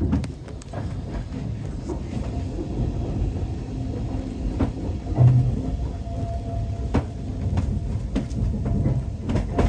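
Heritage railway train running along jointed track: a steady low rumble with scattered sharp clicks as the wheels cross rail joints and points, and a heavier thump about five seconds in.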